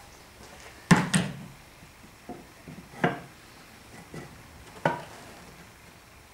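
Loose wooden panels knocking against each other as they are fitted and shifted by hand into a box: a sharp double knock about a second in, then lighter knocks, with firmer single knocks at about three and five seconds.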